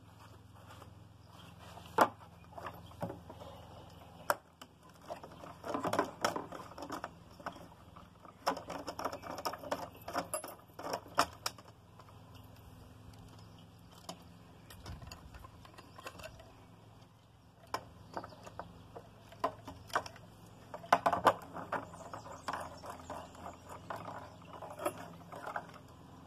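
Hands unscrewing and handling the tethered plastic screw caps of a fuel canister: scattered clicks, taps and short rattles in several bursts, with quiet stretches between.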